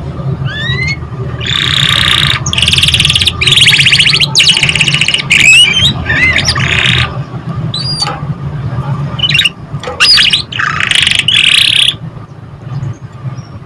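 Canary singing: phrases of very fast rolled trills alternating with gliding whistled notes, separated by short pauses, over a low steady hum.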